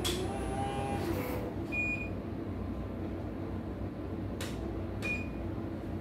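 A portable computerized embroidery machine runs with a steady whir that stops about a second in. It then gives two short, high beeps, one at about two seconds and one near the end, among a few sharp clicks from the machine being handled. Right after, the technician suspects the main thread has come loose.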